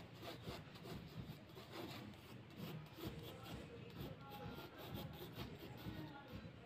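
Faint scratching of a graphite pencil on drawing paper in many short, quick strokes.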